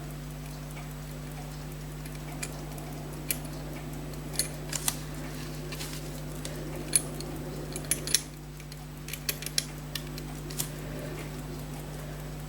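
Small, sharp metallic clicks and taps, irregular and scattered through the middle, from tools and small watch parts being handled at the bench. A steady low electrical hum underneath.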